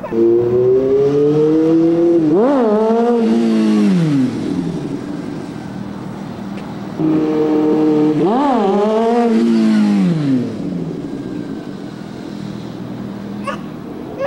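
Sport motorcycle engine revving hard twice as the rider pulls wheelies. Each time a steady engine note jumps up sharply in pitch, then falls away over a second or two, with a quieter lull between the two runs.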